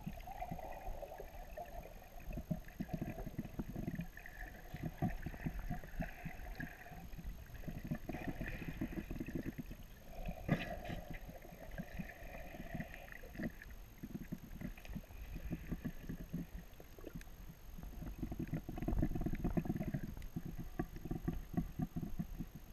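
Muffled underwater noise around a snorkeler's camera: water swishing and crackling in repeated surges every second or two, with a duller rushing between them.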